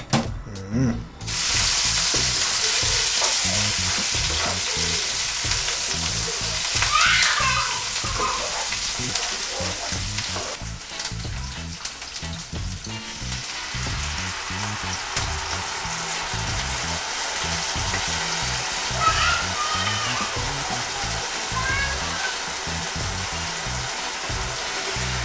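Sliced onion, scallion, thyme, hot pepper and ginger sizzling as they fry in oil in a non-stick frying pan. The sizzle starts about a second in and holds steady, a little softer in the second half.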